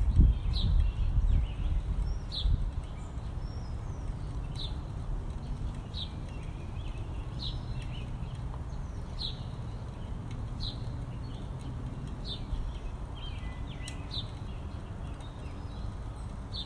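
Birds calling: one bird repeats a short, falling note about every second and a half, with fainter calls from other birds between. Under them is a low rumble, loudest in the first two or three seconds.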